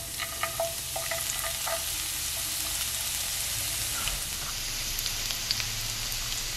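Chopped shallots frying in hot coconut oil in a nonstick skillet: a steady sizzle, with a few short sharp pops in the first two seconds as pieces drop into the oil.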